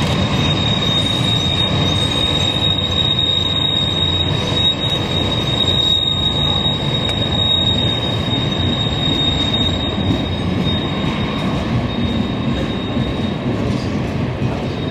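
Train rolling past with its steel wheels giving a steady high-pitched squeal over a continuous low rumble.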